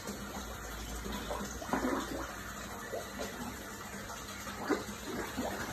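Koi splashing and slurping at the surface of a pond as they crowd in to feed, over a steady run of water from the pond's spout. The louder splashes come about two seconds in and again near the end.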